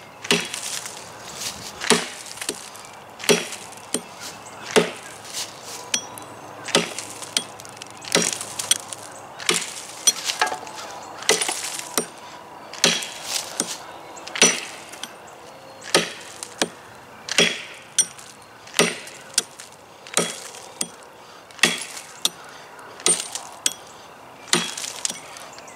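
Axe chopping into the side of a log, cutting a notch: a steady series of sharp woody knocks, a little more than one a second, some blows louder than others.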